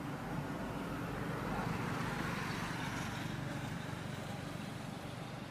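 Steady low rumble of a distant motor vehicle, swelling about two seconds in and easing off again, as if passing by.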